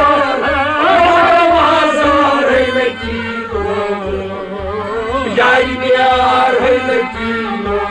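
Kashmiri Sufi song: a voice singing long, wavering held notes over instrumental accompaniment, with a steady low drum beat underneath.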